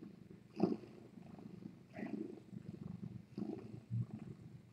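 Domestic cat purring steadily, close to the microphone, with a few short knocks, the sharpest about half a second in.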